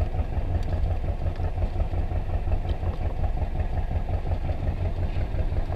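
Fishing boat's engine running steadily, a low, even throb. A couple of faint clinks of spoons on plates.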